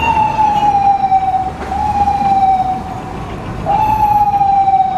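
Ambulance siren on a city street: a loud wail that jumps up in pitch and slowly slides down, three times about two seconds apart, over traffic rumble.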